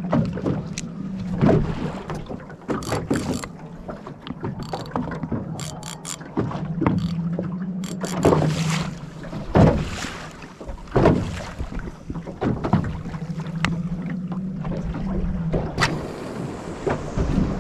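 Choppy water slapping and splashing against a small boat's hull in irregular hits, over a steady low hum.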